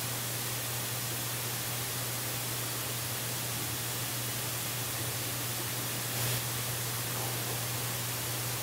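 Steady hiss of wind and distant surf on a cliff-top nest camera's outdoor microphone, over a constant low hum; a brief louder rush about six seconds in.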